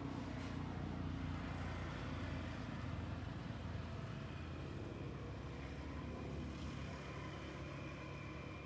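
Low, steady rumble of a distant motor vehicle, swelling in the first second or two and then slowly easing off. A faint, thin steady tone joins about halfway through.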